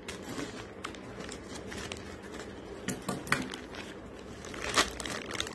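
Scissors snipping through a plastic courier mailer, with the plastic crinkling and scattered sharp clicks, the loudest near the end.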